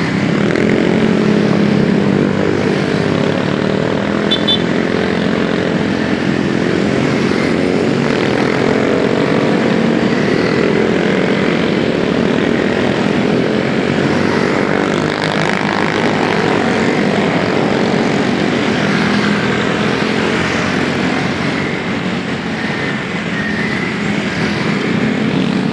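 Honda PCX scooter engine running steadily under way, its pitch wavering gently, with road and wind noise.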